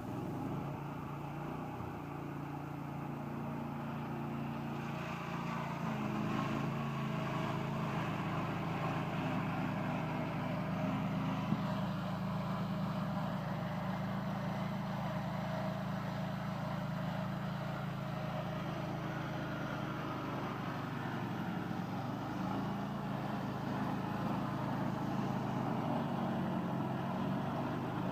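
Small swingblade sawmill running steadily, its blade cutting through fully seasoned, dry yellow box hardwood. The saw is working at the limit of what it can cut, with a blade not yet sharpened.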